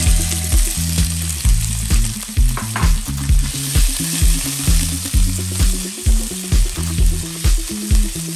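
Sliced raw pork sizzling in hot oil and fried garlic in a nonstick wok, the sizzle rising as the meat goes in, while a plastic spatula stirs it. Background music with a steady beat plays underneath.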